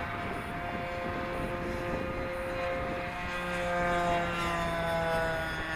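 Electric RC airplanes flying overhead: the whine of several motors and propellers at different pitches, one dropping slightly in pitch near the end, over low wind rumble on the microphone.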